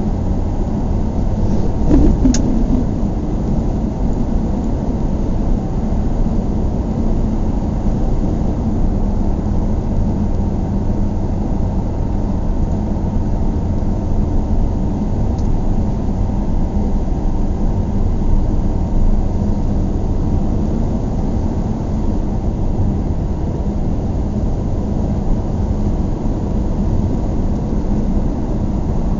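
Steady low rumble of a vehicle in motion, with a brief knock about two seconds in.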